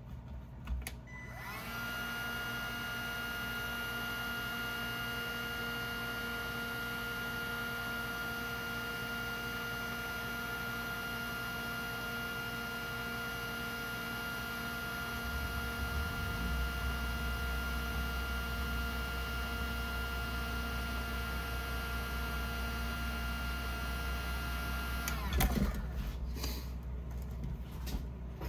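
Electric heat gun switched on, its fan motor spinning up to a steady whine, running for over twenty seconds while shrinking heat-shrink tubing on a crimped wire connector, then switched off with a click near the end. A low hum joins about halfway through.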